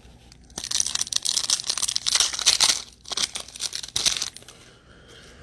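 Packaging being torn and crinkled while a sports-card blaster box is opened. There is a long spell of ripping and rustling from about half a second in to nearly three seconds, then a shorter one ending a little after four seconds.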